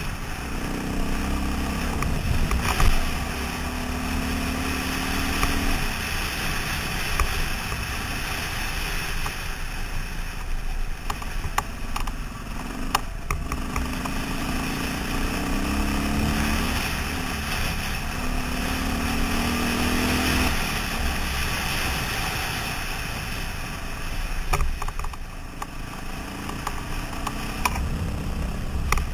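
KTM 530 dirt bike's single-cylinder four-stroke engine running under way, its note coming up in several stretches over a steady rush of wind and road noise, with scattered clicks.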